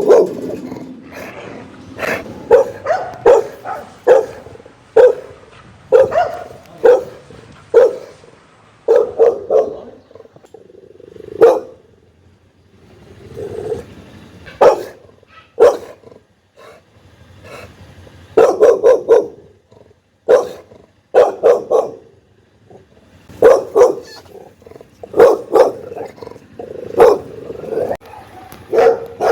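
Pit bull-type dog barking loud and angry, in clusters of several barks with short pauses between, and a low growl in some of the gaps.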